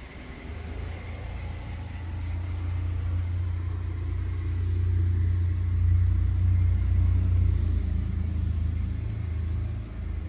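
Low, steady rumble of a car engine running, swelling a little towards the middle and easing near the end, with a faint thin high whine over it.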